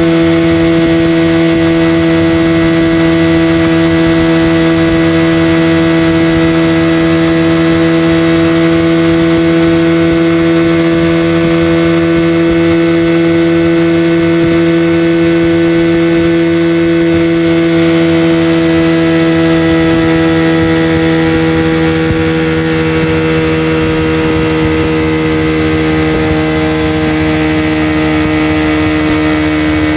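Honda fuel-injected motorcycle engine held at steady high revs for a timed oil heat test: a continuous, even engine drone whose pitch sags a little and gets slightly quieter about two-thirds of the way through.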